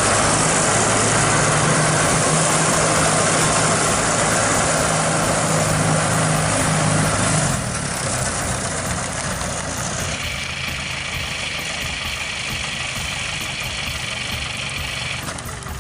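Farm machine's engine running steadily with a low hum, the level dropping sharply about seven and a half seconds in. A steady high-pitched whine sounds from about ten seconds in until near the end.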